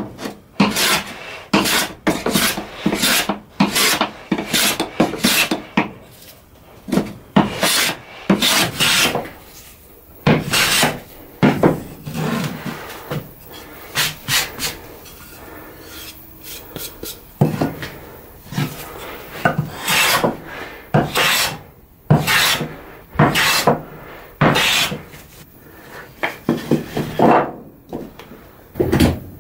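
Metal bench hand plane being pushed along wood in repeated strokes, each a short rasping swish as it shaves off old paint and wood, roughly one stroke a second with a few brief pauses.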